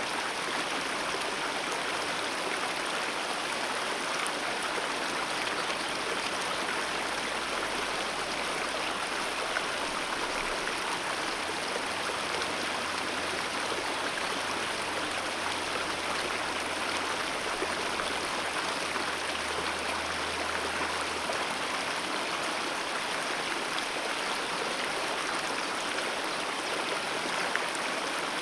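Alpine mountain river flowing fast: a steady, even rush of water with no breaks.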